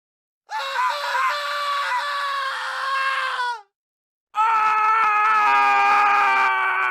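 A man screaming: two long screams, the first about three seconds long and sliding down in pitch as it ends, the second starting about four seconds in and held steady.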